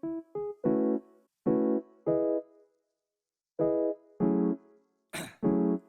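Background music: keyboard chords played in short, separate stabs with silent gaps between them, and a brief noisy hit near the end.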